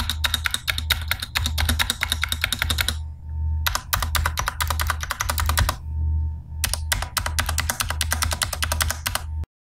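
Fast typing on a Digital Alliance Meca 6X Plus mechanical keyboard, in three quick runs of keystrokes with short pauses between, over a low pulsing hum. It stops abruptly near the end.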